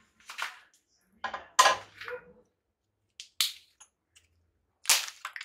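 Four short bursts of sharp cracking and crunching, the loudest about a second and a half in: the last roots of a Premna being cut and snapped as its root ball is worked free of the pot.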